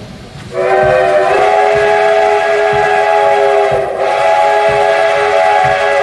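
Steam locomotive whistle blowing one long, loud chord of several tones, starting about half a second in, with a short dip near the four-second mark before it sounds on again.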